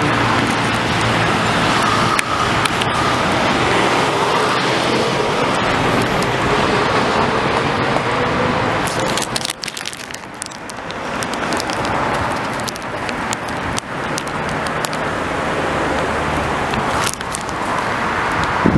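Road traffic on a busy multi-lane street: cars passing steadily, with one engine's pitch rising slowly through the first half as a vehicle accelerates.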